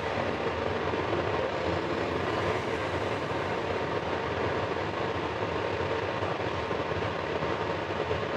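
Beef and mushroom gravy simmering in a skillet: a steady bubbling sizzle.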